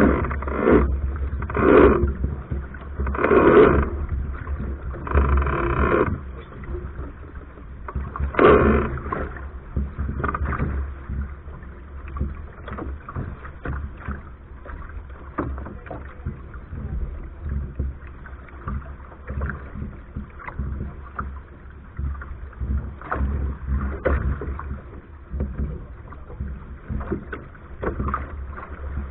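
Soling keelboat under sail: water rushing and splashing along the hull, with wind buffeting the deck-mounted microphone as a steady low rumble. Several louder splashes come in the first nine seconds or so, then the wash settles lower and choppier.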